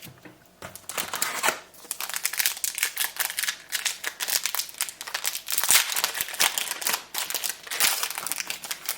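A booster pack's wrapper being torn open and crinkled, with the cards inside rustling as they are handled: dense, irregular crackling and rustling.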